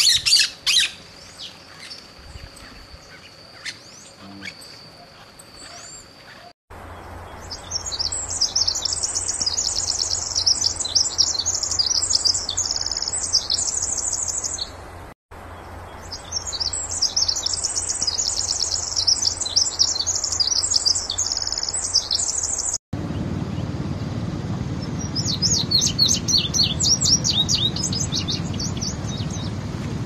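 Songbirds singing, in several recordings cut together. A short call and a faint steady high tone come first, then a long, rapid, high trilling song that plays twice, then another high song of quick notes over a low rumble.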